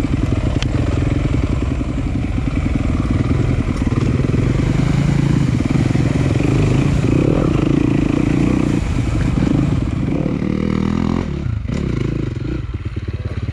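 Single-cylinder enduro dirt bike engine running under shifting throttle, its pitch climbing toward the middle and falling away briefly near the end before picking up again.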